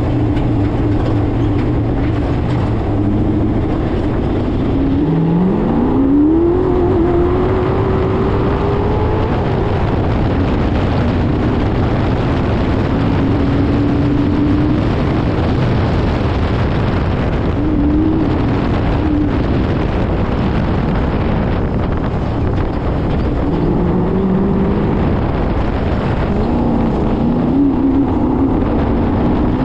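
Off-road race car's engine under hard driving, its note climbing sharply about five seconds in, holding, then dropping and rising again several times as it accelerates, shifts and eases off for corners. A steady rush of wind and track noise runs underneath.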